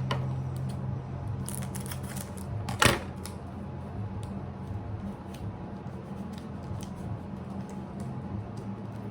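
Hands handling Pokémon trading cards and their pack: scattered light clicks and taps, with one louder, sharper sound about three seconds in. A steady low hum runs underneath.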